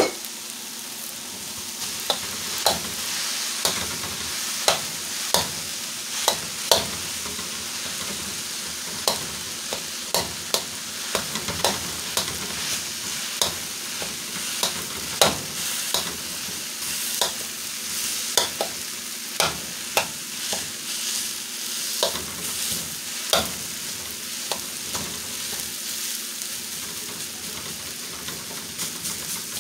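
Rice and cabbage sizzling in a steel wok while a metal spatula stirs and breaks up the rice. Sharp irregular clinks and scrapes of the spatula against the wok sound over the steady sizzle, thinning out near the end.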